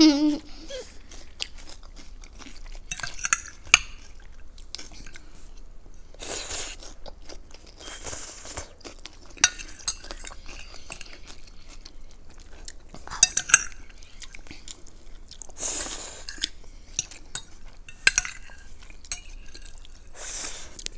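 Eating sounds: forks clinking and scraping on plates many times, with several short bursts of crunchy chewing.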